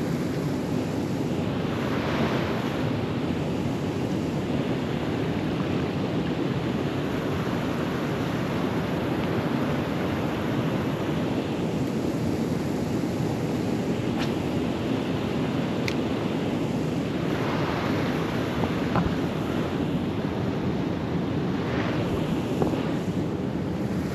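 Steady rushing noise of wind on the microphone and water, swelling a few times, with a few faint clicks in the second half.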